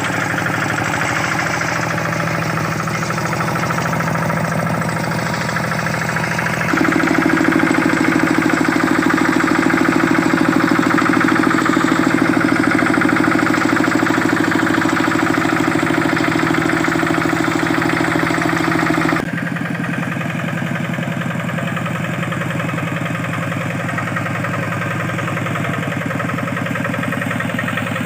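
Kubota RD65 single-cylinder diesel engine on a Quick G600 two-wheel hand tractor, running steadily with a rapid pulsing beat. About a quarter of the way in it gets louder and heavier, as if working harder, then drops back abruptly about two-thirds through.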